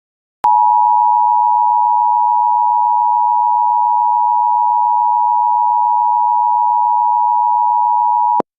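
Emergency Alert System attention signal: two steady tones near 1 kHz (853 and 960 Hz) sounding together as one loud, unwavering tone. It starts abruptly about half a second in, lasts about eight seconds, and cuts off sharply near the end. It is the signal that precedes a spoken emergency alert.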